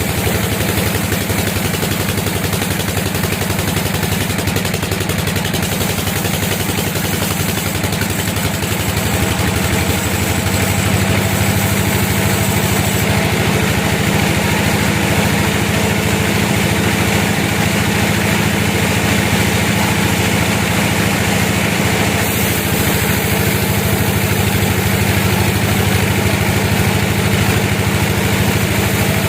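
Sawmill machinery running steadily: a continuous engine or motor hum that grows a little heavier in its low tones about ten seconds in.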